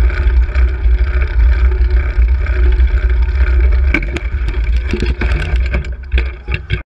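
Heavy wind rumble on a bicycle-mounted camera's microphone while riding, then about four seconds in a car passes very close, with a sharp crack followed by a run of knocks and rattles as the bicycle is struck in a hit-and-run and ends up on the road shoulder.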